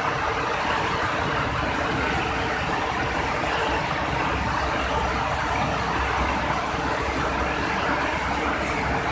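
Palm oil mill shell-and-kernel separating machinery running with a steady, dense mechanical noise over a low hum.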